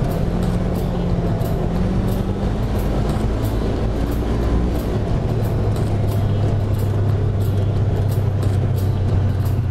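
Polaris RZR side-by-side's engine running steadily under way on a muddy dirt trail, its note dropping to a lower pitch about halfway through.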